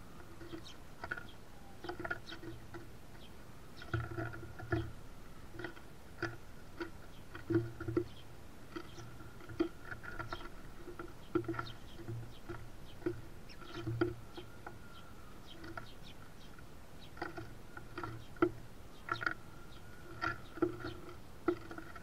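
House sparrows pecking and cracking sunflower seeds on a wooden platform feeder: an irregular patter of sharp taps and cracks, a few a second, over a faint steady hum.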